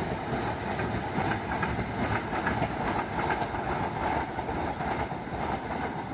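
A freight train's wagons rolling away on the rails: a steady wheel rumble with scattered clatter, slowly easing as the end of the train recedes.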